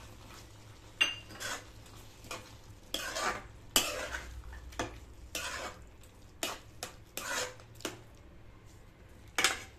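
Steel spoon scraping and knocking against a metal pan while stirring thick carrot halwa, folding in ghee-roasted cashews and raisins. The scrapes come in irregular strokes, a few sharper knocks louder than the rest.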